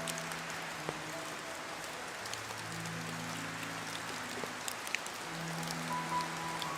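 Steady rain falling, an even hiss with scattered sharp drop ticks, under soft slow background music of long held low notes.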